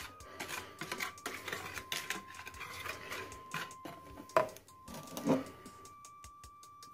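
Wire balloon whisk beating whipped kidney-bean liquid (bean aquafaba meringue) in a plastic jug: fast, irregular clicking and tapping of the wires against the jug, with two louder knocks about four and a half and five and a half seconds in.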